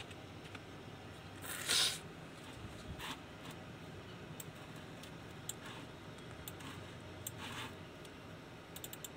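Quiet room with a brief rustle about two seconds in and a few fainter rustles later. A quick run of small computer clicks comes near the end.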